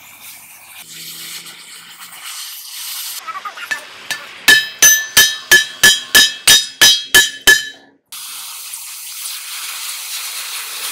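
Hand hammer striking the torch-heated steel bearing eye of a truck V-rod, about a dozen ringing metal-on-metal blows at roughly four a second. An oxy-acetylene cutting torch then hisses steadily.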